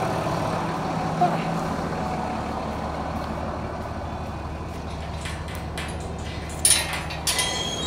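Massey Ferguson tractor's diesel engine running steadily at idle, with a few clunks and rattles near the end as someone climbs into the cab.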